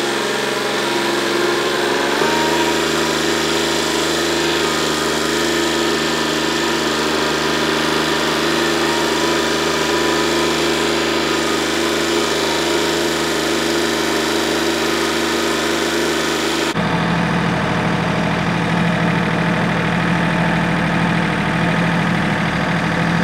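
Kioti compact tractor's diesel engine running steadily, picking up speed about two seconds in. About three quarters of the way through, the sound changes abruptly to a deeper tone.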